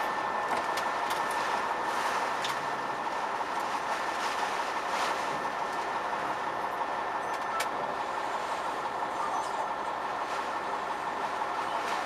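Storm wind and driving rain battering a parked semi truck's cab, heard from inside: a steady roar with scattered sharp ticks of rain striking the glass.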